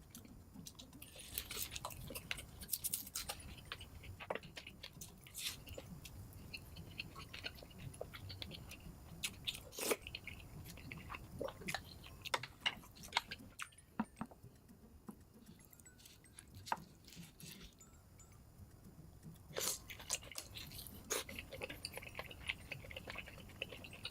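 A person chewing and crunching food close to the microphone, played back sped up, with many irregular sharp crunches and wet mouth clicks. There is a quieter stretch past the middle, then a dense run of crunches near the end.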